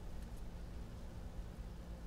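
Quiet room tone: a low steady hum with faint hiss, and only a couple of tiny ticks.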